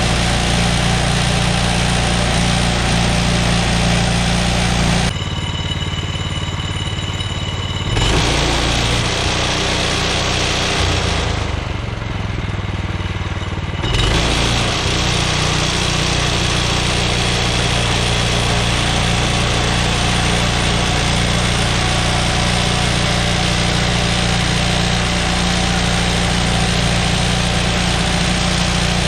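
Woodland Mills HM126 portable bandsaw sawmill running steadily under its gas engine. The sound thins out for a few seconds twice, about five and eleven seconds in.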